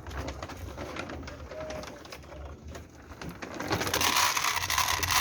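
Dry cat food being put out, heard as a loud rattling hiss for about the last second and a half. Before that there is only a low background hum.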